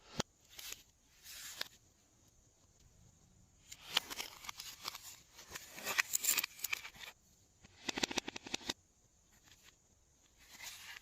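Glossy slime being worked by hand, giving sticky crackling and popping in short bursts of rapid clicks, with pauses in between.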